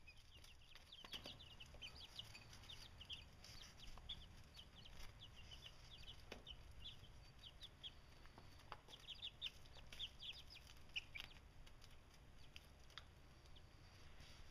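A brood of two-week-old chicks peeping faintly: many short, high cheeps overlapping throughout, with a few soft ticks among them.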